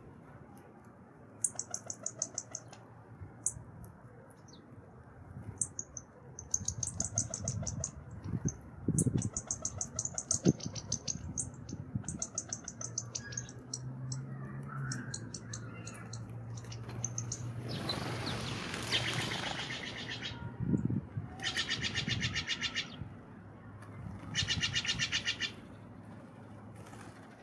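Small songbirds chirping in short, rapid trills, with a loud rush of flapping wings about two-thirds of the way through as the birds take off.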